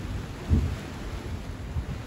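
Sea surf and wind at the shore, with wind buffeting the microphone in gusty low rumbles; a strong gust hits the microphone with a loud low thump about half a second in.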